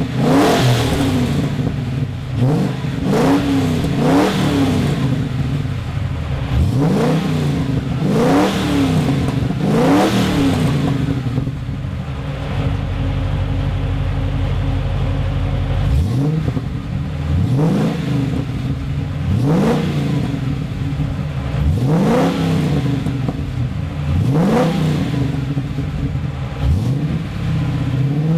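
Ford 5.0 Windsor V8 with extractors, 200-cell high-flow cats and a 2.5-inch Redback single exhaust, blipped in a series of quick revs about every one to two seconds, each rising and dropping back to idle. Near the middle it settles to a steady idle for about five seconds before the revs resume.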